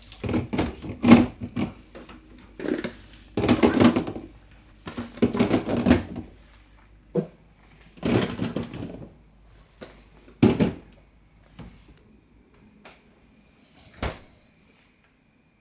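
Irregular knocks, thuds and clatters of containers, shelves and drawers being handled in a refrigerator. They come thick and fast for the first nine seconds or so, then thin out to a few single knocks, the loudest about ten and a half seconds in.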